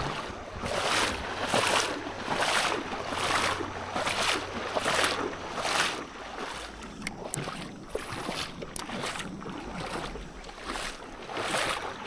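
Kayak paddle strokes in river water, a regular splash and swish a little more than once a second, weaker and less regular in the second half.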